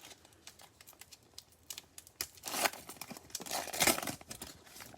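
Plastic trading-card pack wrapper crinkling and tearing as it is opened by hand, with two louder rips about two and a half and four seconds in.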